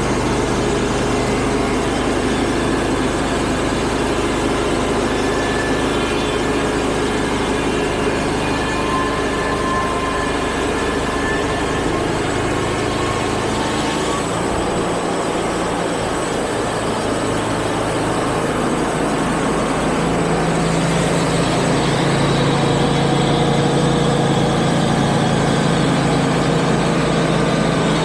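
Wood-Mizer portable band sawmill's engine running steadily. Its note drops about halfway through, then rises and gets slightly louder about twenty seconds in.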